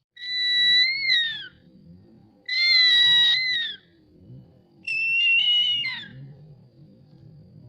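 Crested serpent eagle calling three times: loud whistled calls about a second long each, holding a steady pitch and sliding down at the end, the third pitched a little higher.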